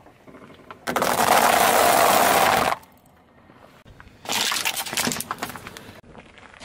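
A car tyre rolling over dry spiral pasta, crushing it with a dense crunching for about two seconds. After a short lull, a second crushing, of white balls in a clear plastic tray, gives a burst of sharp cracks and crackles for nearly two seconds.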